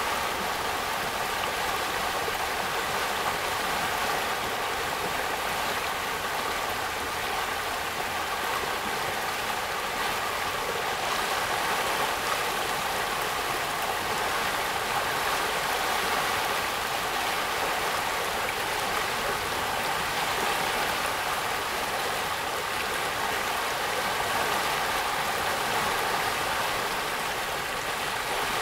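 Storm-swollen creek in flood, its muddy water rushing fast over a shallow riffle in a steady, unbroken roar.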